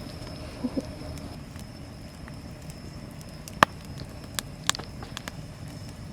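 Wood campfire crackling: a steady low rush broken by sharp pops. The loudest pop comes about three and a half seconds in, with a couple more a second later.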